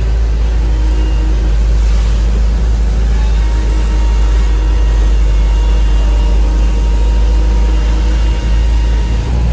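A moving truck's engine and road noise heard from inside the cab: a steady, deep rumble.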